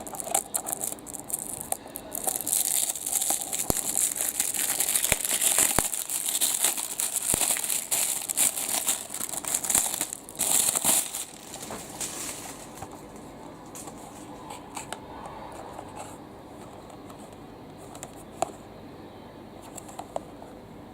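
Plastic or paper packaging crinkling and rustling as it is handled, with occasional tearing. It goes quiet about twelve seconds in, leaving a few light clicks.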